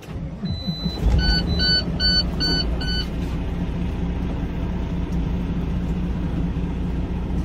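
Semi-truck diesel engine starting about a second in, then idling steadily. A dashboard warning chime beeps five times, evenly spaced, over the first seconds of the start.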